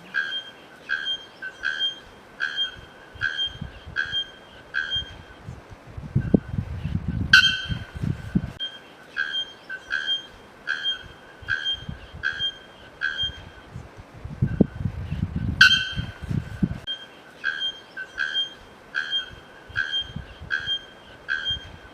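A whistled call repeated in short, evenly spaced notes, about one every three-quarters of a second, each at the same pitch. Every eight seconds or so a sharp click and a low rumble cut in, so the whole sequence repeats like a loop.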